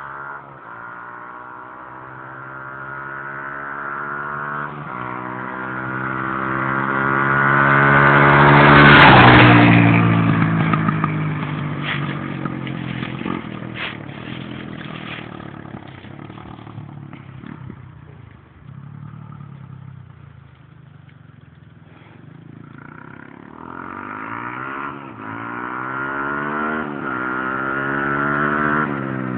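1998 Honda XR200R dirt bike's single-cylinder four-stroke engine revving up through the gears as it approaches, passing close about nine seconds in with a drop in pitch, then fading into the distance. Near the end it comes back, growing louder as it revs up again.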